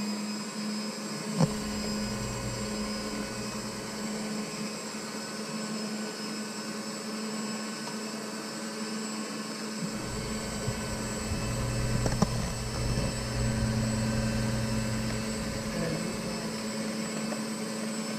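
Electric hand mixer running steadily, its beaters mixing cake batter in a bowl, with a sharp knock about a second and a half in and another about twelve seconds in.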